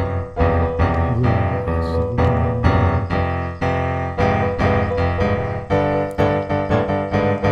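Background music played on piano, a run of quick notes over a steady low bass.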